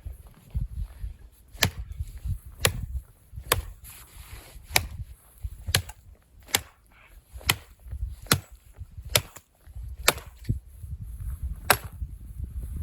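Wood being chopped: a dozen sharp, evenly paced strikes, about one a second.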